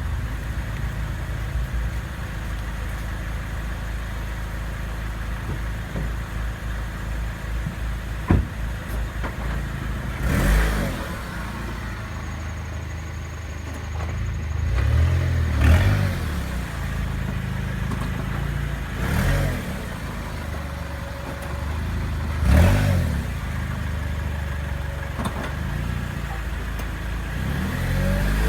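2008 Honda Accord's four-cylinder engine running with a steady low hum, revved briefly about five times, each rev rising and falling in pitch. A sharp click is heard once, about a third of the way in.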